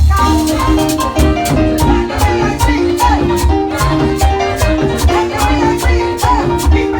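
Live merengue band music: a fast riff of short repeated notes over a steady bass and percussion beat.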